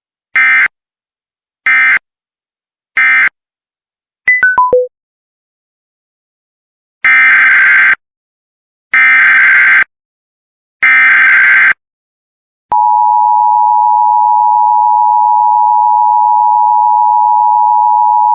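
Emergency Alert System digital tones. First come three short bursts of screeching data, the end-of-message code closing the previous alert. Then four quick beeps fall in pitch, followed by three longer data bursts, the header of the next alert. About 13 seconds in, the steady two-tone EAS attention signal starts and holds.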